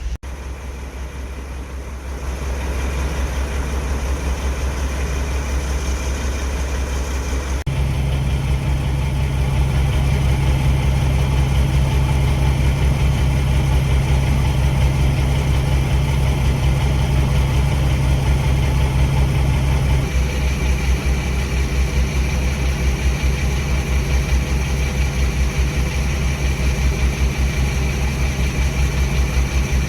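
A diesel locomotive engine running steadily with a deep, even drone. The tone shifts abruptly about eight seconds in and again about twenty seconds in.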